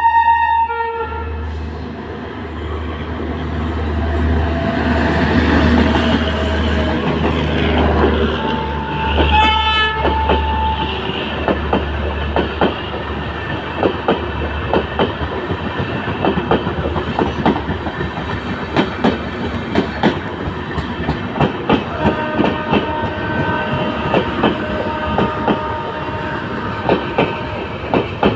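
Passenger train passing: its horn sounds at the start and again about nine seconds in, then the wheels clatter over the rail joints in a long run of clicks as the coaches go by.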